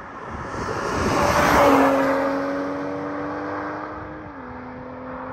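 BMW M240i's inline-six engine under hard acceleration as the car goes by. A rushing sound swells to a peak about two seconds in, then a steady engine note slowly fades, dropping a little in pitch near the end.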